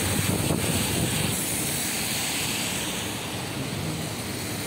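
Heavy rain, a steady rushing noise, with wind rumbling on the microphone.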